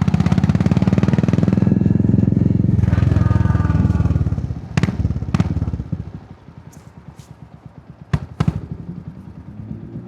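Royal Enfield Hunter 350's single-cylinder engine and exhaust running under way for about four seconds, then easing off to a quieter, slower beat. A few sharp clicks come about five seconds in and again just after eight seconds.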